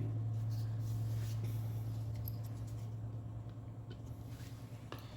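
A steady low hum that slowly fades, with a few faint light clicks of small parts being handled.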